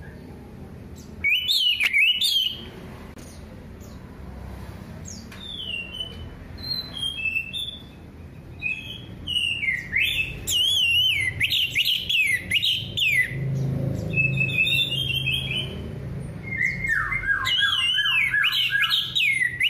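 Orange-headed thrush (anis merah) singing: quick, zigzagging whistled warbles in phrases with short pauses between, one loud phrase about a second in, softer song in the middle, then long loud phrases through the second half, over a faint low hum.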